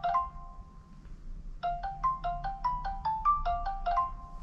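Phone ringtone: a marimba-like melody of quick notes ending on a held note, a pause of about a second, then the phrase plays again and ends on a held note near the end.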